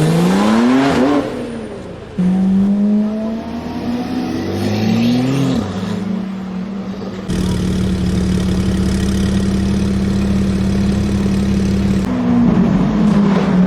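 Porsche car engine revving hard. Its pitch climbs up to about a second in, falls away, then holds steady at a high pitch. It rises again around five seconds and holds steady again for a long stretch, with several sudden jumps between takes.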